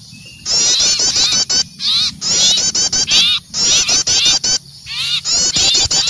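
Small songbirds giving excited alarm calls: about four bursts of fast, sharp down-slurred chirps, each about a second long, with short gaps between them. This is the noisy chatter of small birds mobbing an owl, as used in a bird-trapping lure call.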